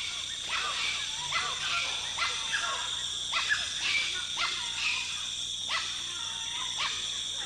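Animal calls repeated in short arching notes, several to a second, over a steady high-pitched insect drone of rainforest.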